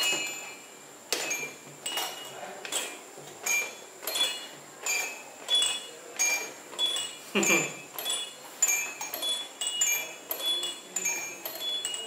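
Toyshine roly-poly tumbler doll rocking back and forth, its built-in bell chiming once with each rock, about every two-thirds of a second, starting about a second in.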